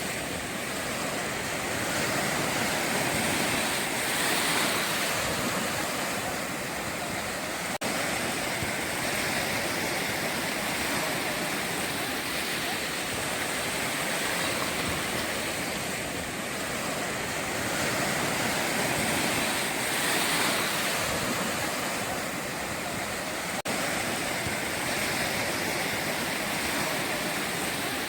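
Ocean surf breaking on a beach: a continuous rushing wash that swells and eases every few seconds, with two brief momentary dropouts.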